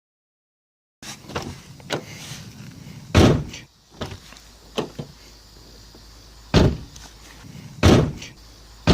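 Frameless driver door of a newer, little-worn Infiniti M sedan being shut several times: solid thumps about two, five and a half and seven seconds after the sound begins, with a fourth right at the end, and small latch and handle clicks between them as it is opened again.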